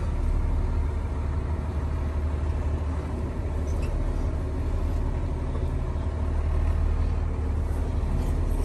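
Box truck engine idling at low revs in reverse as the truck is backed slowly into a parking space: a steady low drone heard from inside the cab.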